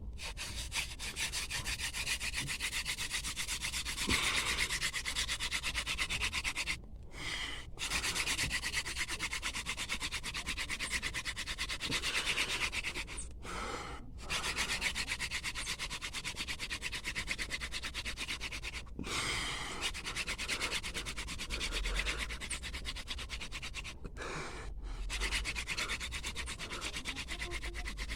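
Wooden friction fire drill: a spindle being worked fast against a hearth board, a continuous dry rubbing with brief pauses about 7, 13, 19 and 24 seconds in, working a somewhat damp piece of wood up toward an ember.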